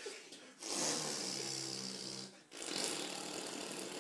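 A person blowing raspberries, lips buzzing: two long raspberries, the first starting about half a second in, the second starting a little after halfway.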